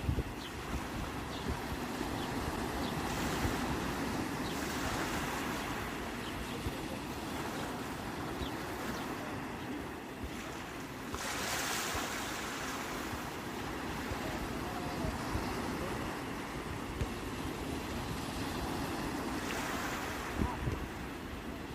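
Sea waves washing ashore in a continuous surf hiss, with three louder surges of breaking waves spread across the stretch. Wind buffets the microphone with a ragged low rumble.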